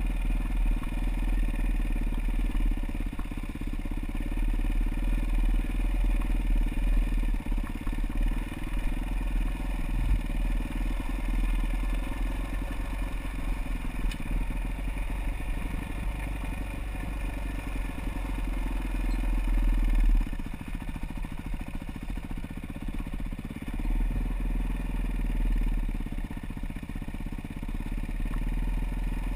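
Off-road motorcycle engine running steadily while being ridden along a rough trail. The level drops noticeably about two-thirds of the way through, as the engine eases off.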